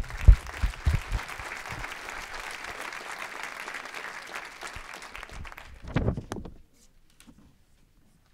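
Audience applauding for about six seconds, then stopping; a few low knocks come near the start and again just before the clapping ends.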